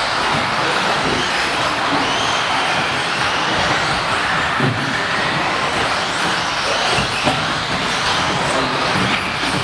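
Electric radio-controlled 2WD off-road buggies racing on an indoor carpet track. Their motors whine, rising and falling in pitch, over a steady din that echoes in a large hall, with a few light knocks.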